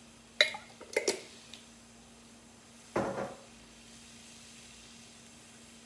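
Kitchen jars and containers knocking and clinking as they are handled and set down during marinade-making: a few sharp clacks in the first second, then a duller knock with a brief ring about three seconds in. A faint steady hum runs underneath.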